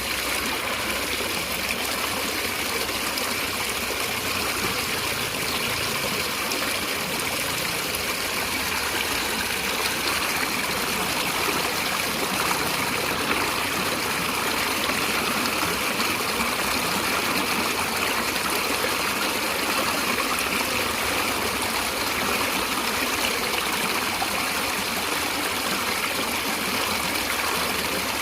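A stream of water running steadily, an even rushing and trickling.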